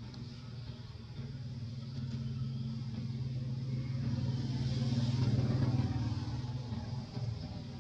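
Engine of a passing motor vehicle: a low, steady hum that grows louder to a peak about five seconds in, then starts to fade.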